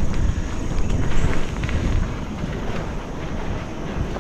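Wind rumbling on the microphone while a mountain bike rolls along a dirt trail, with a few light clicks through it.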